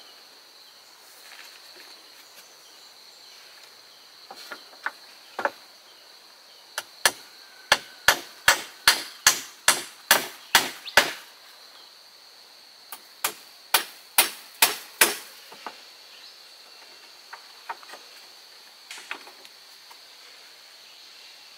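A hand tool striking wood in sharp blows that come in bursts. The longest run is about a dozen strikes at roughly three a second, followed by a shorter run and a few scattered, softer knocks.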